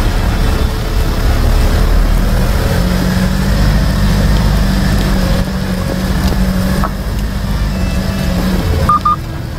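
Vehicle engine running with a steady low hum as it drives slowly along a rough gravel and stone road, tyres rolling over the stones. A click about seven seconds in, and two short high beeps near the end.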